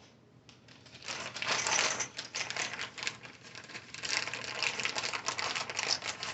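Rapid, irregular clicking and rattling of small hard metal parts, starting about a second in, as drill bits and the drill chuck are handled during a bit change.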